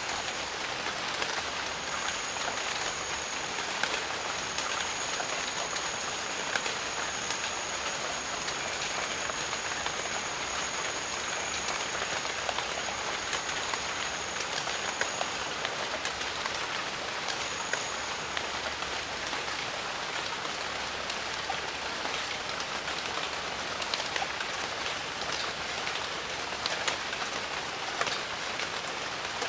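Steady rain falling in a jungle, an even hiss with many separate drops ticking close by. A thin, high steady tone runs through the first half and returns briefly a little later.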